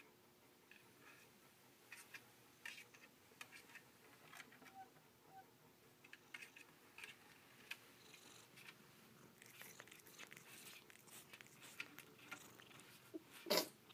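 Faint, scattered clicks and scratches of a cat's paws and claws on a hard white shelf. A brief louder noise near the end.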